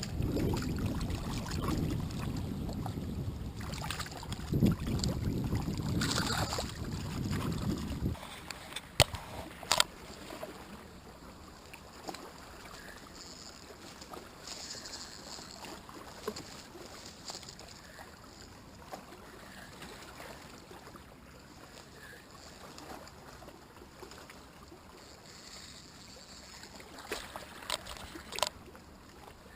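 Low rumble of wind on the microphone that cuts off abruptly about eight seconds in, followed by a quieter outdoor background with a few sharp clicks, two of them soon after the rumble stops and a few more near the end.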